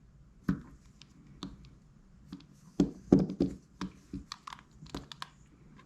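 Irregular clicks and light knocks of small metal baitcasting fishing reels being handled and turned over, with a cluster of louder knocks about three seconds in.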